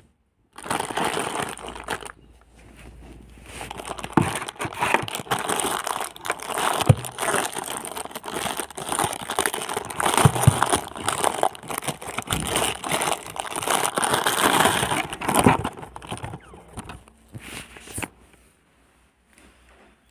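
Thin clear plastic bag crinkling and rustling as hands work it off a rotary electric shaver, with many small crackles. It dies away near the end.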